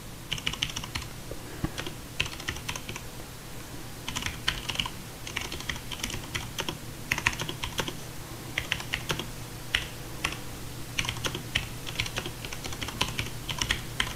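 Computer keyboard being typed on: keys clicking in quick runs with short pauses between them, over a low steady hum.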